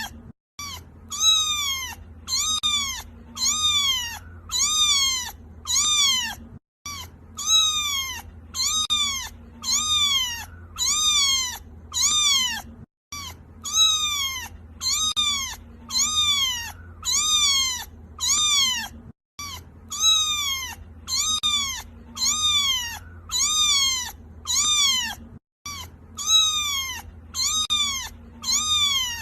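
Kitten crying: short, high-pitched meows, each rising then falling, repeated at about one a second. A brief silent gap every six seconds or so marks a loop restarting.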